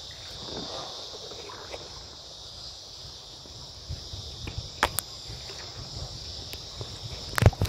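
Steady high-pitched insect chorus, with a few sharp knocks, the loudest near the end.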